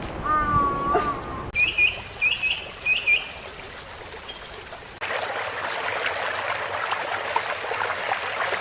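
Three spliced animal-sound clips: a short pitched call in the first second and a half, then three short high bird chirps about half a second apart, then from about five seconds in a steady rushing noise like trickling water.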